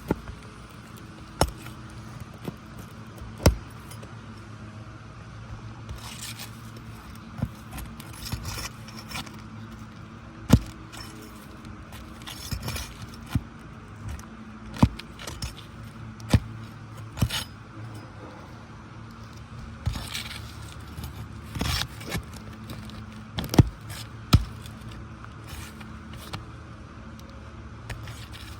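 Removal of a damaged asphalt shingle: a metal tool prying and scraping under the shingles, heard as irregular sharp clicks and knocks with short scraping stretches. A steady low hum runs underneath.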